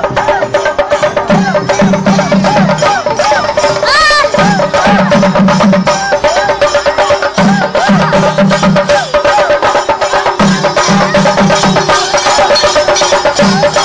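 Shinkari melam percussion music: fast, dense drumming with a repeating low figure about every three seconds and a wavering melody over it. A brief rising high sound cuts in about four seconds in.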